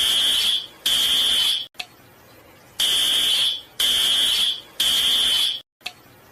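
Fire alarm sounding in the temporal-three evacuation pattern: harsh, high, steady beeps a little under a second long. The last two beeps of one group of three are followed by a pause of about a second, then a full group of three.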